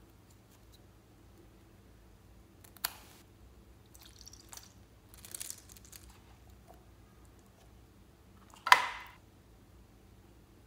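Hands squeezing clear gel beads out of a cut-open foam squishy toy onto slime, with soft wet squishing and rustling. There is a sharp tap about three seconds in and a louder sharp click near the end.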